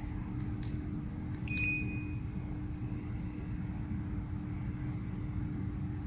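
Handheld fire-alarm address programmer (F900S) giving one short electronic beep about a second and a half in, after a few faint clicks of its keypad, as it reads back a device's address. A steady low hum runs underneath.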